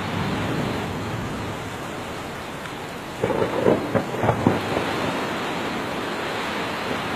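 Steady heavy rain of a thunderstorm, with a short run of louder thunder claps about three seconds in.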